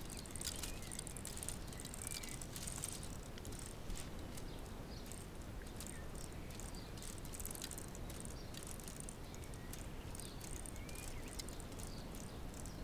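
Faint, irregular clicking and rattling of a K'nex toy car's plastic swinging-weight ratchet drive and gears as it crawls slowly, its small electric motor running down on a supercapacitor. There is steady outdoor background noise and a few short high chirps.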